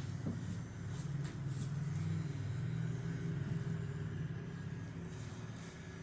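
Electric tattoo machine running with a steady low buzz.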